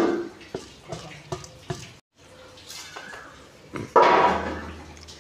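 Soaked rice splashing into a large metal pot of jaggery water as it is tipped in from a bowl: a loud pour at the start that fades, a few light clicks, then a second loud pour about four seconds in.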